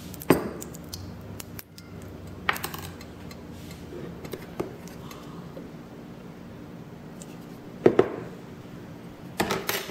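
Occasional sharp clinks and knocks of kitchenware on a wok, four or so, the loudest near the end, over a faint steady hum while oil heats in the pan without sizzling yet.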